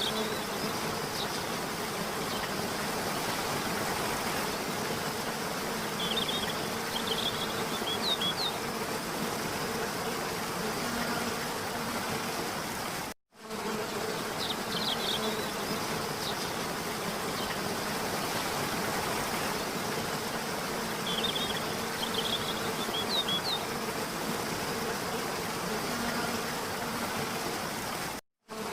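Steady rushing waterfall ambience with a low buzzing drone under it, and clusters of short high chirps near the start and about 6 to 8 seconds in. The sound drops out for a moment about halfway through and again just before the end, where the roughly 15-second recording loops and repeats.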